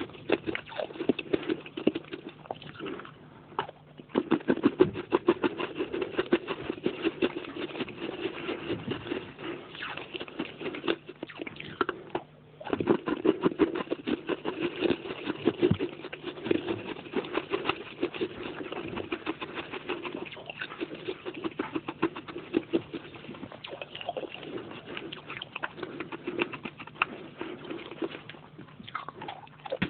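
Close-up chewing of baked clay pot pieces: a rapid, continuous run of crunches, with brief pauses twice.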